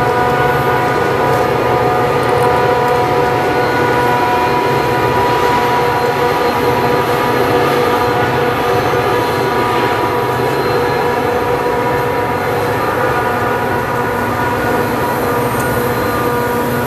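Passenger train rolling past at close range: a steady rumble of wheels on rail with a steady whine held over it.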